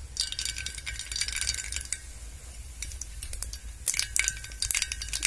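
Mustard seeds spluttering in hot oil, the tempering that starts the dish. A dense crackle of sharp little pops begins just after the seeds go in, thins out in the middle, and picks up again louder near the end.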